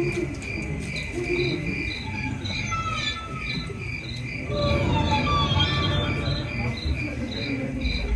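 Cricket chirping in an even rhythm, about two to three chirps a second. Short falling whistle-like tones come in around the middle, over a low rumble.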